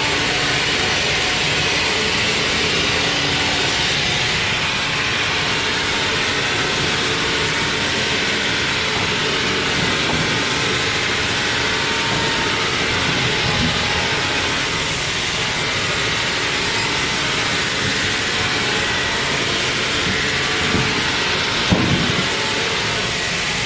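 Sawmill machinery running with a loud, steady noise. A low hum drops out about four seconds in, and there is a single sharp knock near the end.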